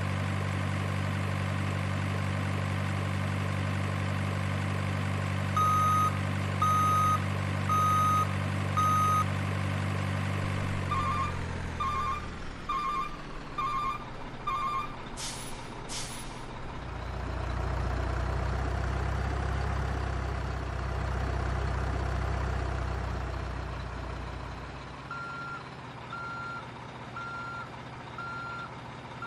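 Remote-control truck's sound module playing a steady diesel engine drone that winds down, runs of reversing beeps, two short air-brake hisses, then a low engine rumble and more reversing beeps near the end.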